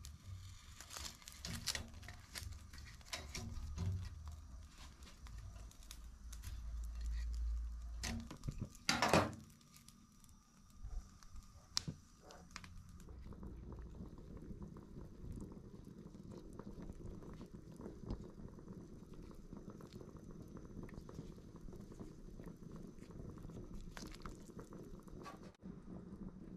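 Metal tongs clicking and scraping on a wire grill rack over a gas burner's low rumble as onions and ginger are charred, with one louder scrape about nine seconds in. About halfway through, a pot of beef bone broth with the charred onions takes over, bubbling steadily at the boil.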